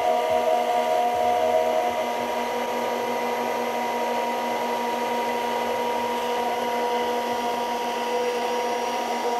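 Stainless-steel immersion (stick) blender running steadily, held still in a tall beaker to emulsify plant milk and oil into an eggless mayonnaise. A steady motor whine, a little louder in the first two seconds.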